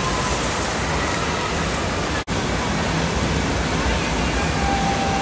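Steady rushing-water noise of an indoor water park, from slides, sprays and pools, with faint distant voices mixed in. The sound drops out for an instant about two seconds in.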